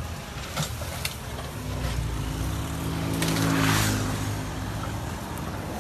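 Engines of a mini excavator and a farm tractor working as they clear and level ground, a steady low hum that grows stronger after the first second or so. A few sharp clicks sound early, and there is a swell of rushing noise about three and a half seconds in.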